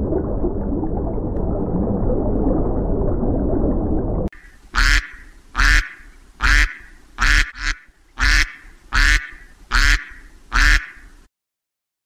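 For the first four seconds, a steady low rush of churning water where koi crowd at the pond surface. Then a mallard hen quacks loudly about nine times, one quack a little under every second, one of them softer.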